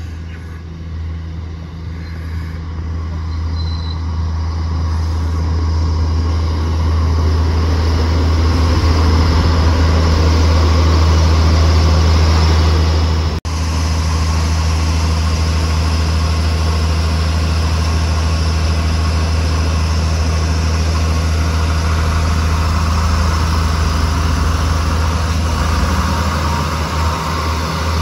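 Renfe class 592 diesel multiple unit drawing into the station and standing alongside the platform, its underfloor diesel engines running with a steady low drone. The drone grows louder over the first ten seconds or so as the train comes closer, then holds steady.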